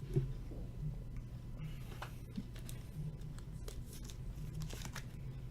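Faint rustles and soft clicks of trading cards being handled and slid through the fingers, over a steady low hum.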